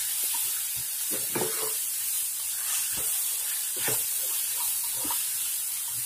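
Chicken pieces with onions and green chillies sizzling in a nonstick pan while a wooden spatula stirs them, with scattered scrapes and knocks of the spatula against the pan.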